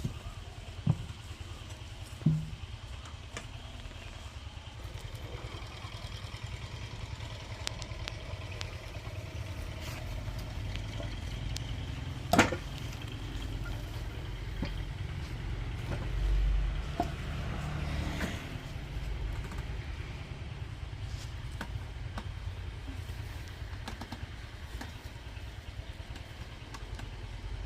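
An engine running steadily at idle, with a few knocks and one sharp clank about twelve seconds in.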